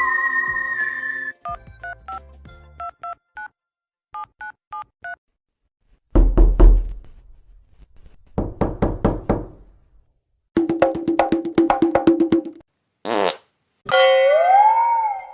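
A string of cartoon comedy sound effects: a held electronic note, a run of short beeping tones, then low sputtering fart sounds, a rapid buzzing run, a brief swoosh, and near the end a tone that slides up and back down.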